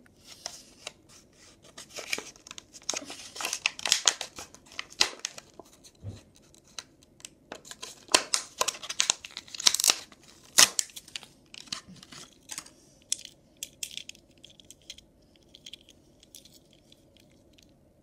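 Cardboard-and-plastic blister packaging of a Hot Wheels toy car being torn open by hand: repeated tearing and crinkling, loudest through the first two-thirds, thinning to a few light crinkles near the end.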